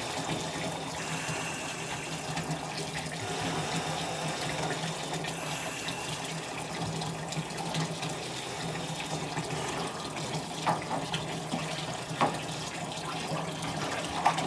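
Water running steadily from a wall tap into a filled birth pool, pouring into the water. A couple of short knocks come in the last few seconds.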